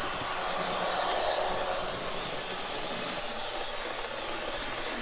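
Bachmann 00 gauge Class 350 Desiro model running fast, its Olivia's DCC sound decoder playing the electric unit's traction and rail sounds over the noise of the model's wheels on the track. Steady, a little louder about a second in as the train passes close.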